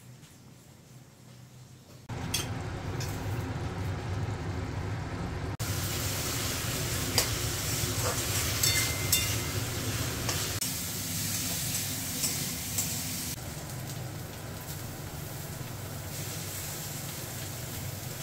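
Vegetables sizzling in a steel kadai while a metal spatula stirs them, with sharp clicks and scrapes of the spatula against the pan. It starts suddenly about two seconds in, after a quieter start, and changes level abruptly a few times.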